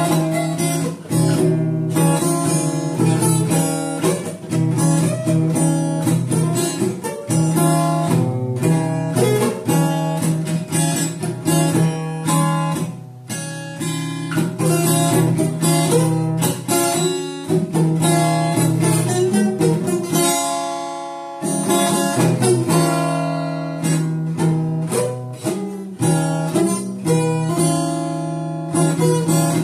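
Steel-string acoustic guitar strummed in a steady rhythm, moving through chords. About twenty seconds in, one chord is left to ring and fade for a moment before the strumming picks up again.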